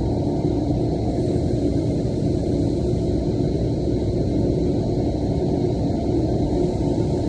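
A steady low rumble of background noise, with no distinct clicks or tool strokes standing out.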